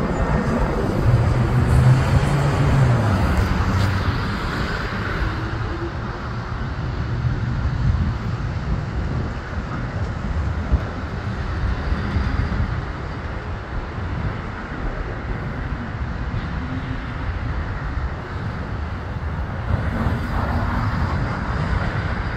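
Steady rumble of a jet aircraft landing and rolling down the runway. It is loudest in the first few seconds, then eases off a little and holds.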